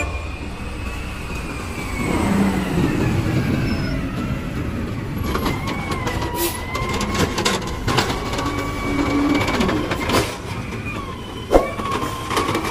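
Natural-gas automated side-loader garbage truck running as it pulls up and works its hydraulic arm to grab and lift a wheeled trash cart, with a whine that wavers in pitch. There is a bang near the end as the cart is emptied over the hopper.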